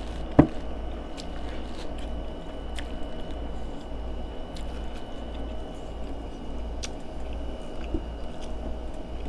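Close-up chewing of corn on the cob, with one sharp loud bite about half a second in and soft mouth clicks after it, over a steady background hum.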